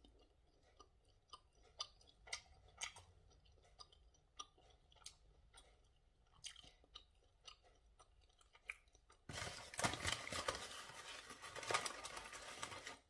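A person chewing a bite of breaded chicken nugget with her mouth closed: soft, scattered, wet mouth clicks. About nine seconds in, a rough noise starts that is louder than the chewing and lasts about three and a half seconds.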